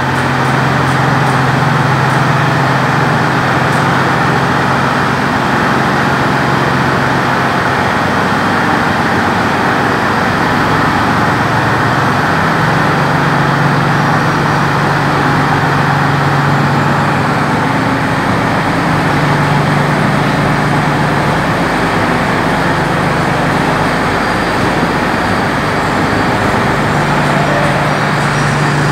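Steady vehicle engine and road noise: a motor running with a low hum that rises slightly in pitch about twelve seconds in.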